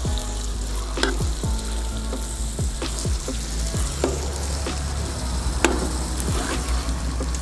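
Chicken pieces sizzling as they brown in hot oil and butter in a cast-iron kazan. A slotted metal spoon scrapes and knocks against the pot several times as the pieces are turned, the sharpest knock a little past halfway.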